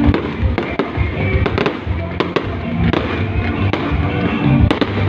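Fireworks going off in a rapid, irregular string of sharp bangs and pops, over loud music.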